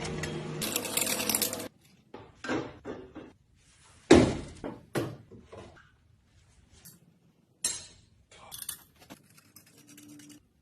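A steady sound with several held tones cuts off suddenly, then a dozen or so irregular clanks and knocks of hard objects follow with short pauses. The loudest knock comes about four seconds in.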